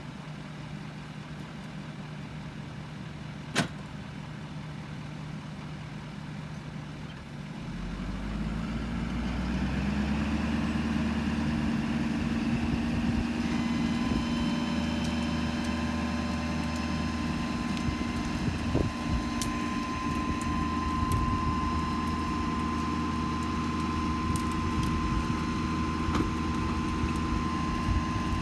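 Ford F-550's Power Stroke V8 turbodiesel idling, with one sharp click a few seconds in. After about seven seconds the hydraulic dump hoist engages and a louder, deeper steady hum sets in, joined by a higher steady whine, as the loaded bed tips up.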